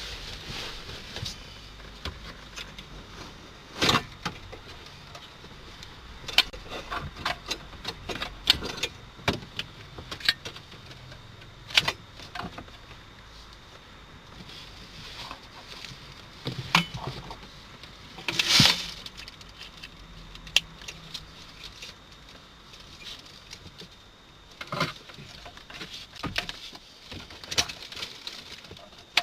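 Irregular crackling and clicking from a car's audio speakers with the radio switched off: interference noise from an installed Lockpick interface.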